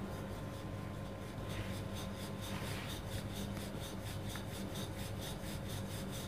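Wooden rolling pin rolled rapidly back and forth over roti dough on a stone rolling board: a rhythmic rubbing of about five strokes a second that sets in about a second and a half in, over a steady low hum.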